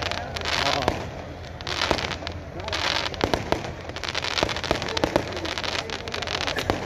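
Aerial fireworks bursting: surges of hissing crackle and many sharp pops, which come thick and fast from about three seconds in.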